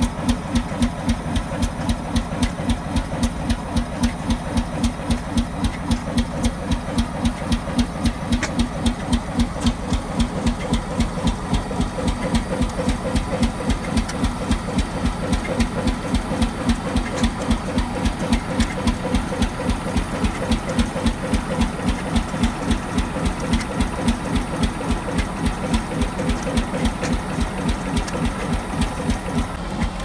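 1919 Fairbanks Morse 75 hp two-cylinder diesel engine running steadily, with an even beat of exhaust pulses a few times a second.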